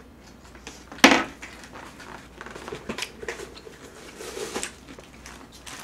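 Tableware clatter at a meal: one sharp knock about a second in, such as a utensil set down against a dish, then scattered lighter clicks and handling noises.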